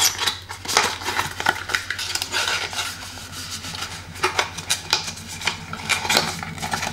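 Thin cardboard card box being folded and handled: scattered light clicks, taps and rubbing of card stock.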